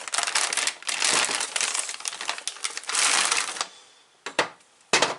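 Plastic parts bag crinkling as it is handled, in bursts for about three and a half seconds, then two short clicks near the end.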